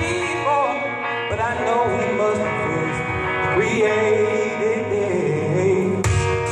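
A man singing into a microphone over instrumental accompaniment, his voice wavering in pitch with vibrato.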